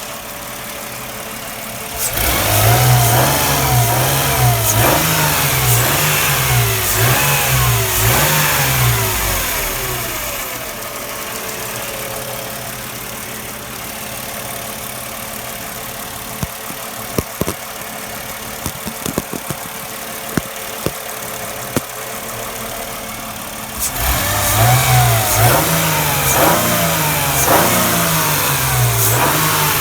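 Mercedes CLK320 (W208) 3.2-litre V6 engine revved in a run of quick throttle blips, dropping back to idle midway, with scattered sharp clicks during the idle, then blipped again near the end. The owner suspects the catalytic converter is the source of a noise.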